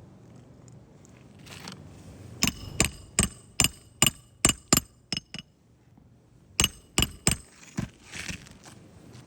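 Hammer blows with a short metallic ring: a quick run of about nine strikes, a pause of about a second, then four more.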